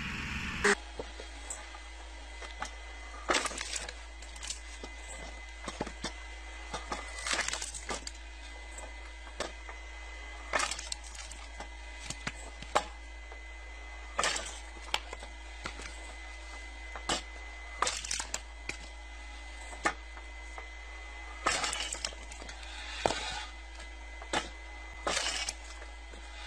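Electric log splitter running with a steady hum while wood rounds split against its wedge with sharp cracks, roughly one every one to two seconds.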